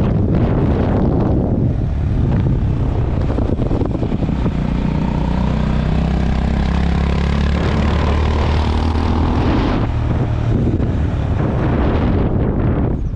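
Honda CB350 RS's single-cylinder engine thumping steadily while the motorcycle is under way, with wind rushing over the microphone.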